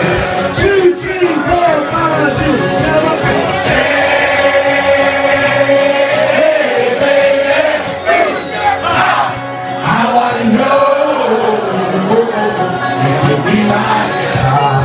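Live acoustic band of banjo and guitar playing with a man singing into a microphone, and many voices from the crowd singing along.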